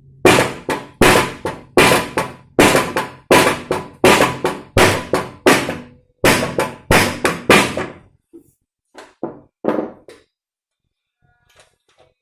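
Plastic hammer tapping on the drain plug at the bottom of an old Royal Enfield front fork leg, driving the damper piston up into the tube. A steady run of sharp blows, about two to three a second for some eight seconds, then a few lighter taps.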